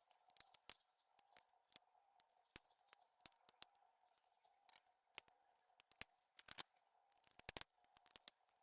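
Faint, irregular light clicks and ticks of tiny screws and a small screwdriver being handled while a 3D printer's fan housing is taken apart. The clicks are clustered more densely about six and a half to seven and a half seconds in.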